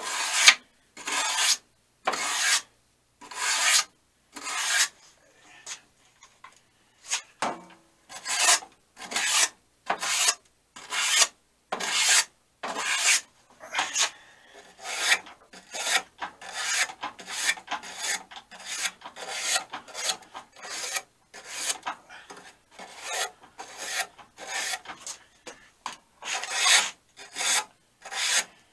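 Small stainless steel wire brush scrubbing dirt out of the drawer guides of a metal tool box, in rhythmic back-and-forth strokes about one to two a second, with a short pause about a quarter of the way in.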